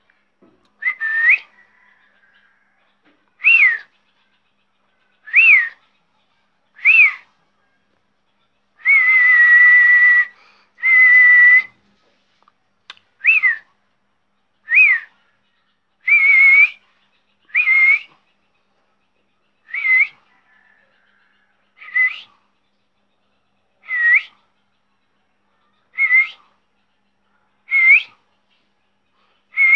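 Parrot whistling in a string of short calls, about one every two seconds, each a quick arching or rising note. Two longer, held whistles come about ten seconds in.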